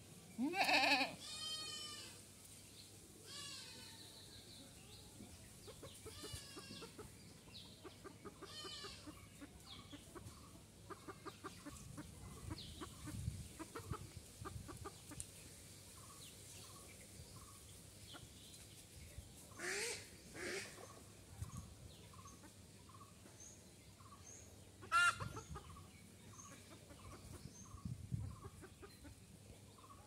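A goat bleating a few times, loudest about a second in and again twice in the middle and once near the end, with chickens clucking in between.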